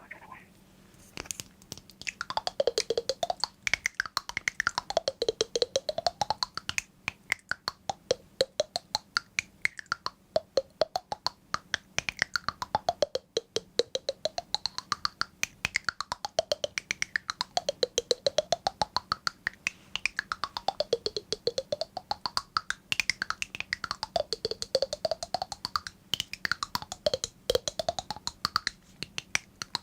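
Rapid, close-up clicking or tapping, many clicks a second, with a hollow resonance that sweeps down and back up in pitch about every two and a half seconds.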